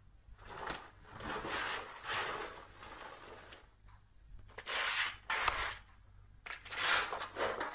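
Cardboard box scraping and rustling along the floor in irregular spells, pushed by a cat walking with its head stuck inside it.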